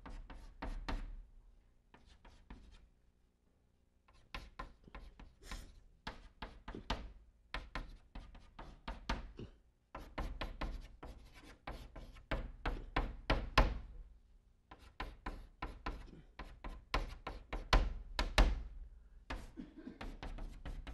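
Chalk tapping and scraping on a blackboard while writing, in quick runs of short, sharp strokes broken by brief pauses.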